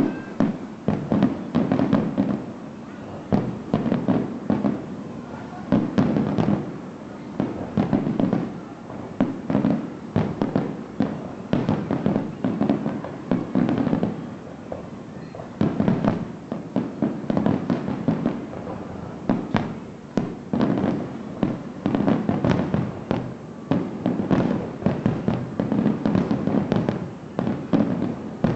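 Fireworks display: a continual barrage of aerial shell bursts and crackling, many sharp bangs every second with no let-up.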